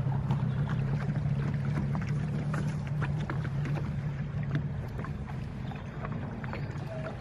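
Boat engine running steadily as the boat travels along the river, a constant low hum, with water splashing and rushing against the hull.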